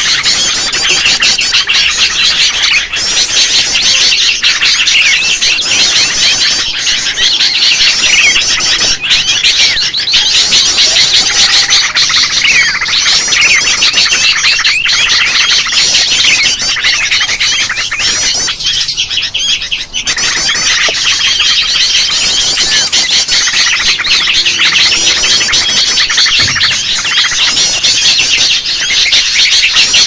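Dense, noisy chorus of many sooty-headed bulbuls (kutilang) calling and chattering over one another, a bird-trapping lure recording. There is a brief lull about two-thirds of the way through.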